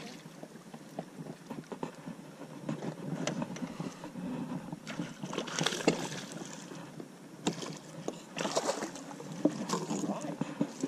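Water splashing and sloshing as a hooked smallmouth bass is reeled up beside an inflatable raft and netted, with scattered knocks and clicks. The splashing comes in several short bursts, the loudest about halfway through.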